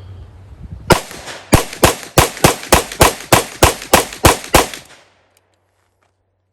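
SIG Sauer P229 pistol in .357 SIG firing about a dozen rapid shots: one shot, then the rest at roughly three a second. The pistol cycles through the magazine without a malfunction, its new firing pin lighting every primer.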